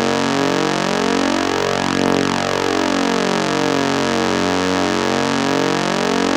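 A spooky droning sound effect: a continuous, dense drone of many steady tones beating against each other in a slow, swirling pattern.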